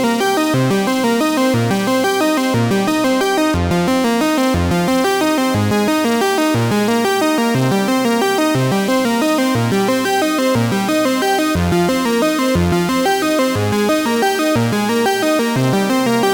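Background music: an electronic track on synthesizer and keyboard, with a steady beat and a bass note repeating about once a second.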